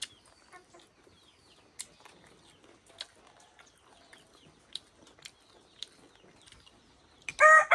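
Faint small-bird chirps and a few soft clicks, then a rooster starts crowing loudly near the end.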